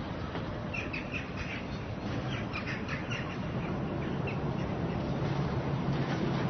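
Street ambience: birds give a cluster of short, squawking calls during the first half, over a steady background hiss of town noise. A low steady hum builds in the second half.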